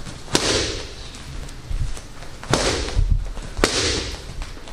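Boxing-gloved strikes landing on focus mitts held by a trainer during mitt work: three sharp smacks, with a short room echo after each.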